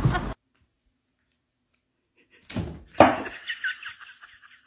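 A single sharp thud about three seconds in, followed by a short run of fainter, higher-pitched sounds.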